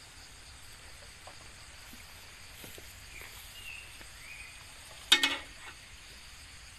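A steady insect hiss with a few faint knocks. About five seconds in comes one sharp, loud metallic clank that rings briefly, from the steel hand tractor as it is lifted and tilted by hand with its engine off.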